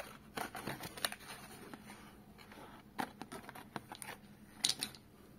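Cardboard shell box handled by hand: the flap rustling open, then 12-gauge shotgun shells being drawn out of the box with scattered light clicks and knocks. The loudest cluster of clicks comes near the end.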